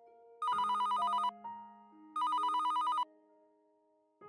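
Telephone ringing with a fast trilling ring, two bursts of just under a second each, over soft piano music.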